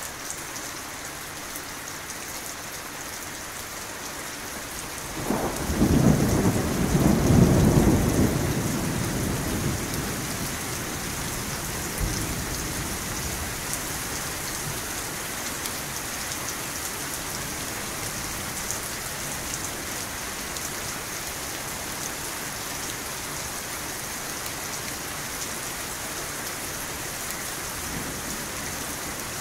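Steady rain falling, with a roll of thunder about five seconds in that rumbles loudly for a few seconds and then fades back under the rain.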